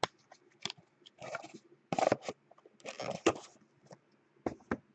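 Crinkling and crackling of plastic shrink wrap as a sealed trading-card box is handled, in three short bursts, with a few sharp clicks around them.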